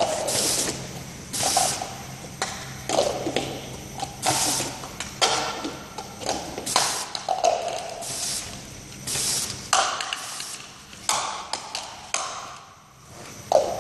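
Automatic labeling machine running: a faint steady motor hum under sharp mechanical bursts that come roughly once a second as plastic cups pass through the labeler on the conveyor.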